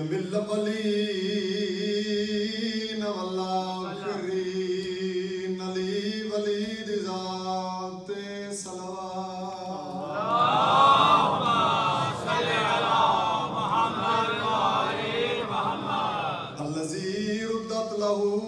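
A man chanting a mourning recitation in long, held, wavering notes. About ten seconds in, many voices take it up together for some six seconds, then the single voice carries on.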